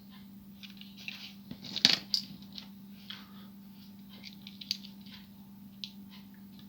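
Small clicks and scrapes of hard plastic toy parts and a screwdriver as screws are driven into a plastic Transformers figure, with a sharper double clack about two seconds in.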